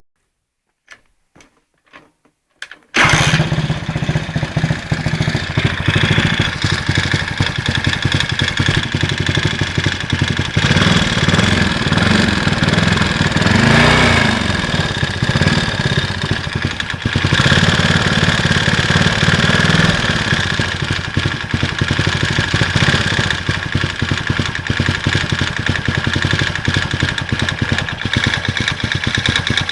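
Viper Active scooter engine starting after a few faint clicks, about three seconds in, then running with a steady rapid beat, revved up and down in the middle and settling back to idle. The owner is asking about a knock in this engine, cause unknown.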